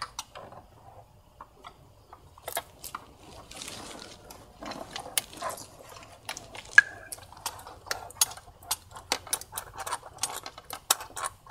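Hand ratchet clicking in short, irregular bursts, with clinks of metal tools, as T30 Torx bolts are worked loose at the bottom of a VW 2.0T TSI intake manifold. The clicks grow denser after the first couple of seconds.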